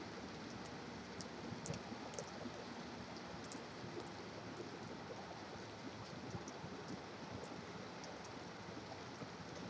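Steady hiss of rain mixed with highway traffic noise, with scattered faint ticks of drops.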